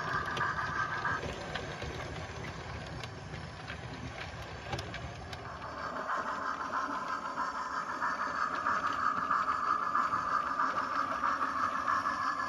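00 gauge model trains running on the track: a steady whine with rumble and small clicks of wheels over the rail joints. It drops away about a second in, then grows louder again from about halfway as another locomotive approaches.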